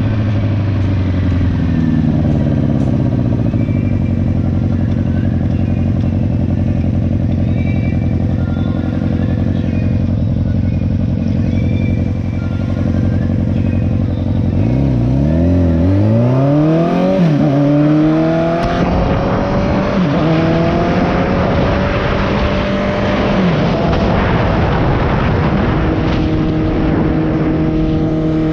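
Motorcycle engine, its exhaust leaking, slowing down and then running steadily at low revs. About halfway through it revs up in several quick climbs with drops between them, as if shifting up through the gears, then holds steady at higher revs.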